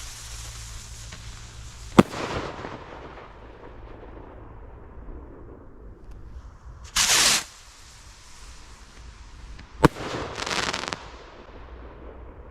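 Vivid Pyrotechnics Hellfires firework rockets: one bursts with a sharp bang about two seconds in, then another whooshes up about seven seconds in and bursts with a bang nearly three seconds later, each bang trailing off in a fading hiss.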